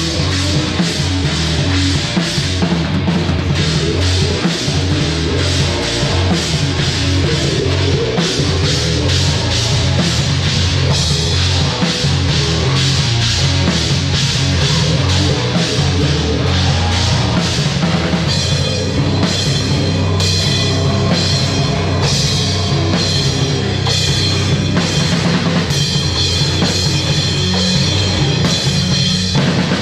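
A heavy rock band playing live, loud and dense: a drum kit pounding under bass guitar and guitar. The cymbals ring brighter from about two-thirds of the way through.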